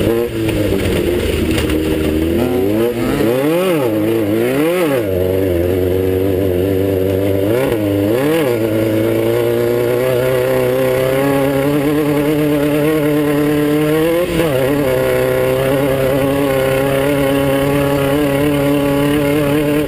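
Class 9 desert race buggy's air-cooled VW engine running hard at race pace. The revs drop and pick up sharply twice a few seconds in and twice more near the middle, then climb steadily and hold high.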